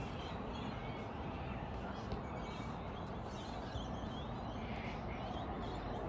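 Birds calling, short chirping calls over a steady low background rumble.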